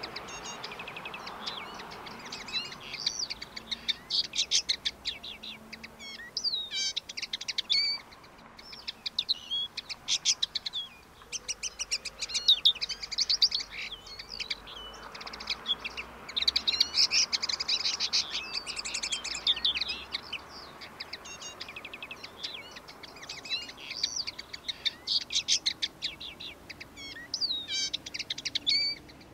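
Male common linnet singing: long, high-pitched phrases of fast, varied twittering and trills, broken by short pauses between bouts.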